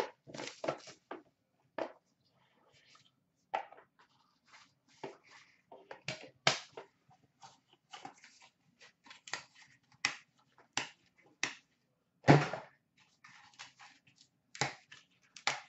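Shrink-wrap being slit and pulled off a trading-card hobby box, then the box and cards handled: irregular crinkles, rustles and small clicks, with one louder knock about twelve seconds in.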